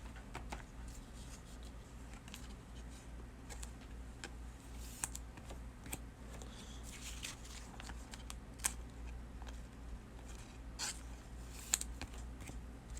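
Faint scattered clicks and rustles of hands handling things at a desk, over a steady low hum.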